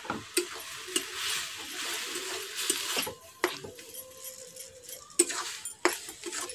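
Metal spatula stirring spinach and dal in a metal kadai, scraping the pan and striking its side with sharp clinks several times.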